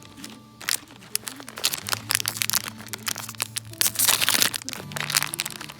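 Dry wood crackling and snapping in a dense, irregular run of sharp cracks, busiest a little past the middle.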